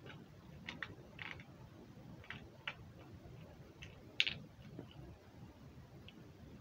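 Faint, irregular small clicks and ticks of a small white plastic object being handled in the fingers, the sharpest one about four seconds in.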